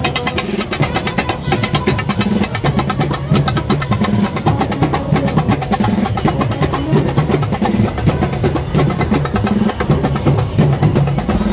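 Loud procession drumming with a fast, dense beat and music underneath.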